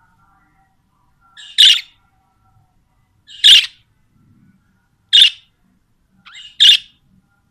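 Budgerigars calling: four loud, short calls, one about every one and a half to two seconds, each led in by a softer note. Faint, quieter notes sound in between.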